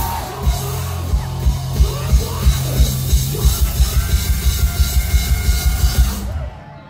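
Rock band playing live through a loud PA, with a pounding drum beat at about three beats a second; the music drops away sharply near the end.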